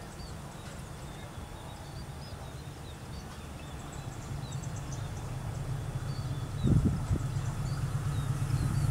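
Diesel locomotive of an approaching train, a low rumble growing steadily louder over the second half, with a couple of dull thumps near the end; small birds chirp high above it.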